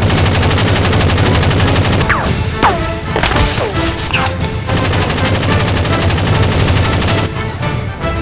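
Rapid, continuous automatic gunfire sound effects under background music. About two seconds in, a few short falling whistle-like tones cut through the firing.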